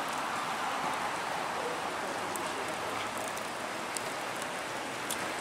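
Steady hiss of wet snow falling on a wet street, with a few faint ticks.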